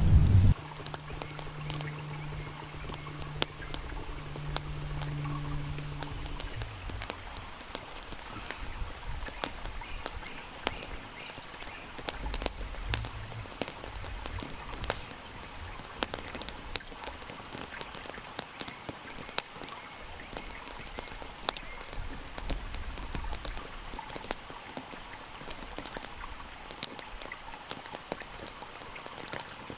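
Wood campfire crackling, with scattered sharp pops and snaps over a faint steady hiss.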